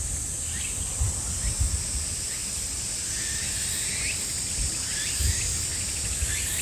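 Outdoor insect chorus: a steady high-pitched buzzing drone, with short chirps repeating every half-second or so. Under it is a low rumble with a few soft thumps.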